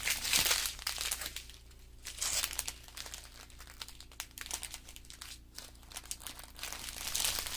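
Small plastic bags of diamond painting drills crinkling as they are handled, in irregular bursts, loudest just after the start, again about two seconds in and near the end.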